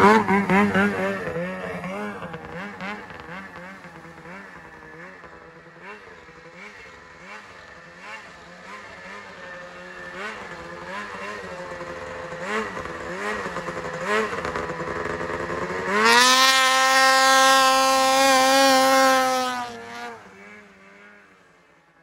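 Ski-Doo 600RS race snowmobile's two-stroke twin, through a race-can exhaust, revving hard as it pulls away. It then fades into the distance, its pitch rising and falling with the throttle. Near the end a loud, steady high-rev run lasts a few seconds and then falls away.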